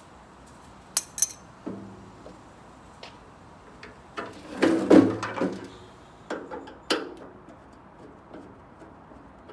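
Metal parts and hand tools clinking and clattering while a microwave is being taken apart. There are two sharp clinks about a second in, the loudest clatter around the middle, and a few more clinks after that.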